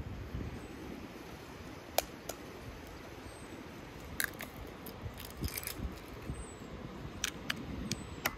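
Raw eggs being cracked against the rim of an enamel bowl and their shells pulled apart: a series of sharp taps and cracks, several bunched together in the middle, over a steady low background rumble.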